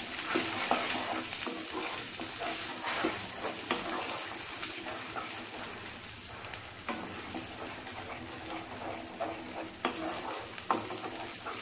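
Onion and tomato purée sizzling in hot oil in a non-stick kadai, a steady frying hiss. A wooden spatula stirs and scrapes the pan in the first few seconds and again from about seven seconds in, with a quieter spell of plain sizzling between.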